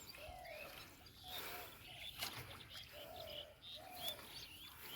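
Birds calling: short, low, arched cooing notes repeating every second or so beneath many quicker, higher chirps.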